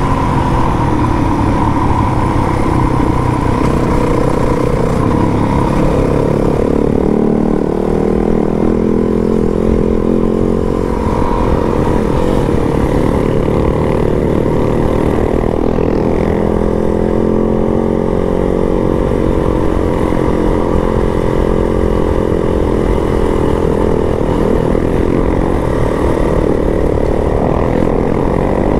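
Yamaha WR250 trail bike's single-cylinder four-stroke engine running steadily while riding, its pitch rising and falling with the throttle.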